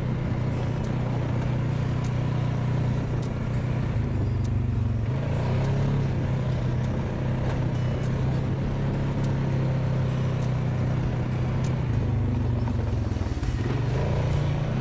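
ATV engine running under way on a sand and dirt trail. The engine note sags twice, about four seconds in and again near the end, and picks back up as the throttle comes back on, with scattered light clicks and knocks over it.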